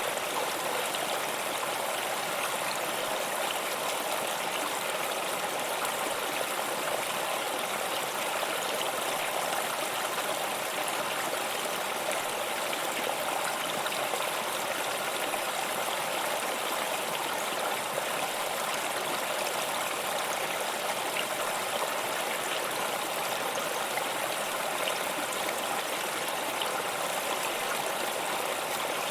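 Waterfall: a steady, unchanging rush of falling water, a dense hiss strong in the mids and highs with little deep rumble.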